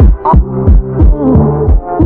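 Electronic music with a steady kick-drum beat, about three beats a second, under a synth bass line and melody.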